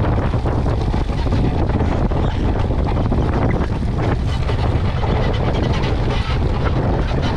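Steady wind rushing and buffeting against the deck camera's microphone on a Moth dinghy foiling at about 40 km/h, mixed with the hiss of water and spray.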